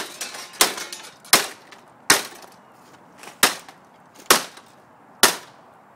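About seven sharp hammer blows struck at an irregular pace, each with a short ring, knocking at a printer's toner drum assembly that is jammed in place.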